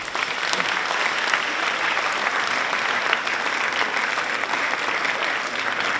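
Audience applause in a hall: many people clapping steadily.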